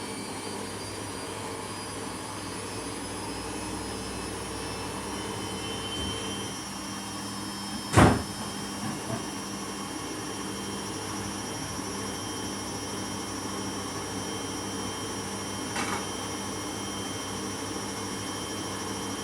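Samsung washing machine running with a steady motor hum and faint whine, the noise the machine is being checked for. A single sharp knock about eight seconds in, and a fainter click near the end.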